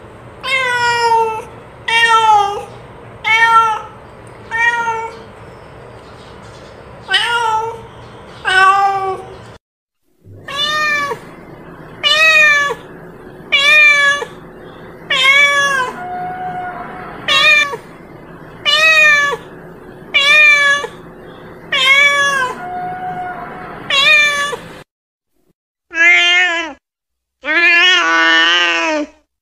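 Domestic cat meowing over and over: short meows that rise and fall, about one every second and a half, with a few brief pauses. Near the end come two longer, drawn-out meows.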